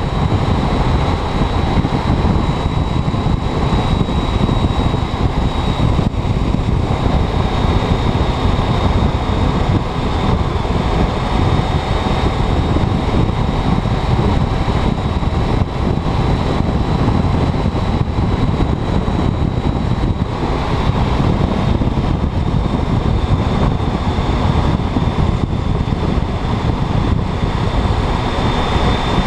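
Motorcycle underway at a steady speed: the engine running, mixed with wind rushing over the microphone, and a faint steady high whine.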